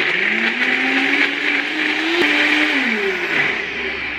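Nutribullet Rx blender running, crushing frozen berries in coconut milk. The motor's pitch climbs steadily for over two seconds, then falls away near the end.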